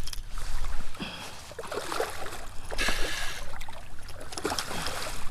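Water splashing and sloshing around a kayak as a hooked bull red drum fights close by, with short noisy bursts about a second in and again around three seconds in.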